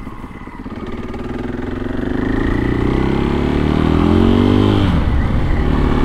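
Supermoto motorcycle engine accelerating, its revs climbing steadily for about three seconds, then dropping sharply at a gear change about five seconds in and pulling again at lower revs.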